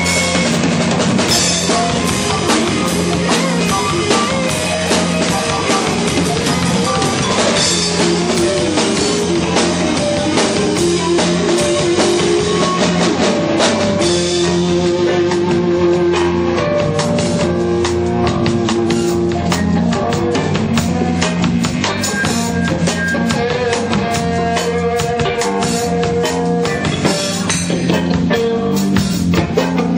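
Live rock band playing loudly: drum kit with bass drum and cymbals under electric guitar, with long held notes over a steady beat.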